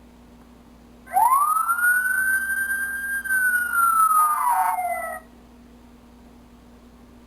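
A toy fire engine's electronic siren sounding one wail. It rises quickly about a second in, holds, then falls and cuts off about five seconds in.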